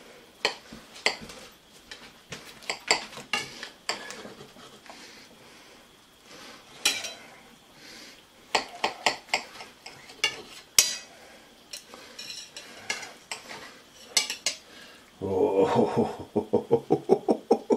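Steel knife and fork clinking and scraping against a ceramic plate while cutting through a bacon-wrapped potato and cheese pie, in sharp irregular clicks. Near the end comes a faster run of rapid scraping strokes.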